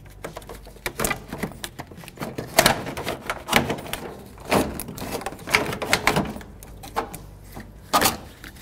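Irregular plastic knocks, clunks and rattles from a car's radiator fan shroud being worked and pulled against the radiator. The shroud won't come free because a plastic clamp still holds it to the lower radiator hose.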